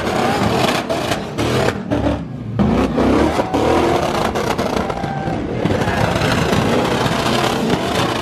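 A Chevrolet Silverado pickup and a Chrysler 300 sedan doing donuts on wet pavement: engines revving up and down over the hiss of spinning tyres.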